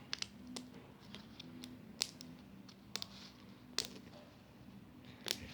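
A handful of sharp, irregular clicks and taps from a small toy being handled and knocked, over a faint steady hum.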